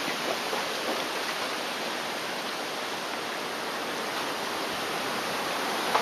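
Typhoon storm of heavy rain and strong wind through trees, heard as a steady, even hiss.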